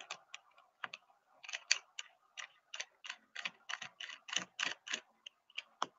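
A run of light, sharp clicks, about three or four a second, heard over a video call's audio.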